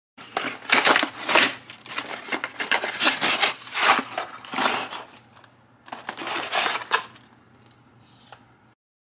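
Cardboard box being opened and handled, its flaps and card inserts rustling and scraping in a run of uneven bursts that ease off near the end.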